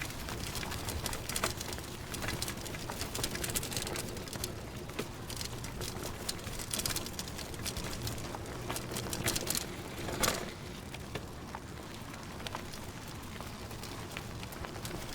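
Bicycle sounds: many irregular clicks and rattles over a steady low rumble, with one louder knock about ten seconds in.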